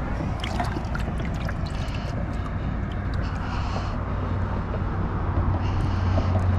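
Steady low engine drone, growing louder near the end, with a few light ticks in the first couple of seconds.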